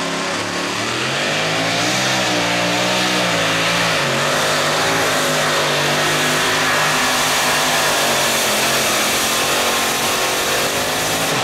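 Modified two-wheel-drive pulling truck's engine at full throttle, hauling a weight-transfer sled under load. It comes up to full power about a second in, and its pitch then wavers up and down through the pull.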